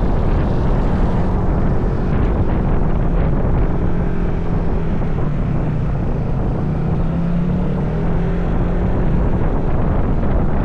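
Vehicle engine running steadily while riding, with wind noise on the microphone.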